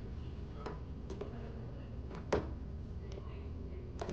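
A few scattered light clicks of white-gold rings being handled on a glass display counter, the loudest a little past two seconds in, over a low steady room hum.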